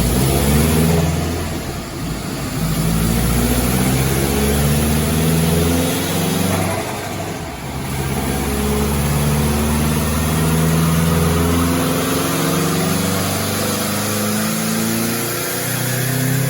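2008 Subaru WRX's turbocharged EJ20X flat-four with a VF52 turbo, catless downpipe and 4-inch exhaust, running hard under load on a chassis dyno. The engine note drops back briefly twice, about two seconds in and again about seven and a half seconds in.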